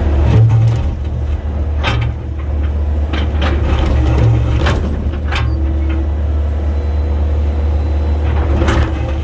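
Komatsu 120 excavator's diesel engine running steadily under load, with sharp knocks and scrapes about four or five times as the bucket digs into hard limestone rock.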